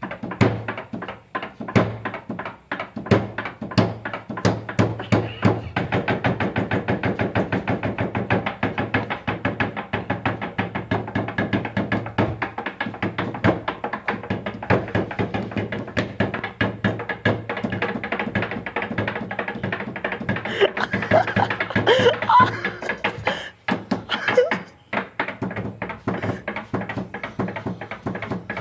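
Hands beating a fast, dense rhythm on a tabletop in imitation of a nagada drum, with the strikes running almost without pause.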